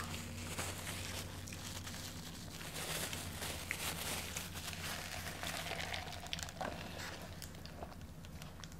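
Crinkling of fast-food wrapper paper mixed with small, scattered clicks and mouth sounds of eating, over a steady low room hum.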